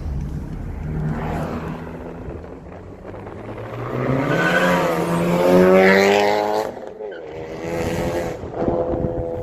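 Honda Civic Type R's four-cylinder engine on an aftermarket exhaust, accelerating hard: the engine note climbs in pitch for several seconds, drops off about seven seconds in, then picks up again near the end.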